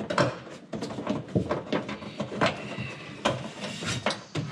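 Irregular clicks, knocks and rattles of hands working cable and plastic fittings, with one brief squeak about halfway through.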